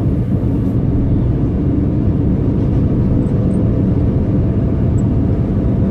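Steady low road and engine rumble of a moving car, heard from inside its cabin, while a large diesel cargo truck runs close alongside.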